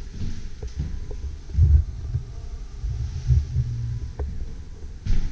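Footsteps on hardwood floors, heard as low, irregular thuds, with a few faint clicks.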